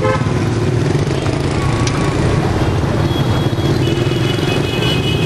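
Motorbike traffic: a steady, loud low engine rumble, with a high steady tone sounding about three seconds in and again from about four seconds to the end.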